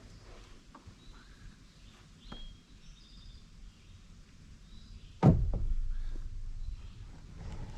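A sudden heavy thump about five seconds in, followed by a low rumble that fades over the next two seconds. Faint short chirps are heard before it.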